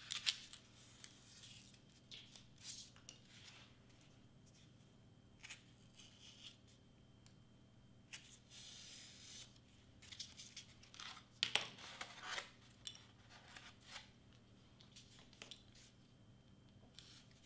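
Craft knife cutting through foam board in short, scattered scratchy strokes, with a longer scraping cut about eight seconds in.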